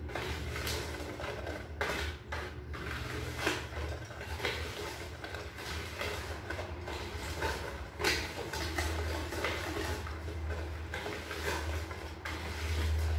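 Wire whisk stirring a dry flour mixture in a plastic bowl: irregular scratchy strokes with light knocks against the bowl, over a low steady hum.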